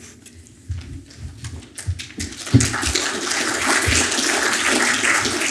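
An audience applauding. It starts about halfway in, after a few low knocks and bumps, and holds steady.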